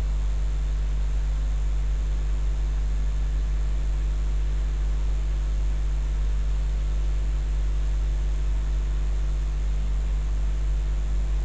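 Steady low electrical hum under a constant hiss: background noise of a computer microphone recording a screen capture, with no other sound.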